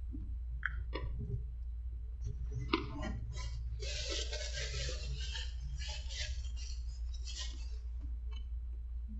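Plastic spoon clicking and scraping in a paper cup. From about three seconds in, paper crinkles and crumples in the hands for about four seconds. A low steady hum runs underneath.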